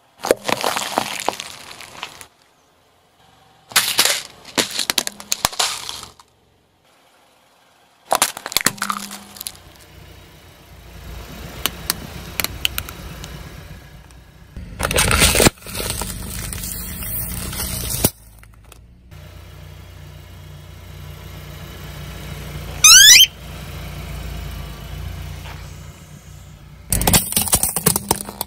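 A car tyre crushing objects such as a bell pepper and plastic or rubber toys: several separate bursts of crunching and cracking that start and stop abruptly, with a car engine running low between some of them. About 23 seconds in comes a short, sharp rising squeak, the loudest sound.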